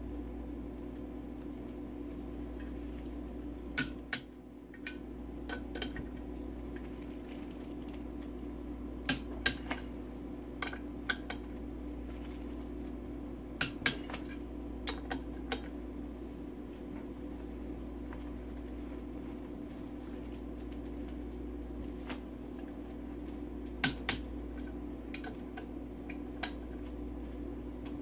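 Metal clutch parts of a VW Beetle engine being handled by hand: sharp clicks and clinks every few seconds over a steady low hum.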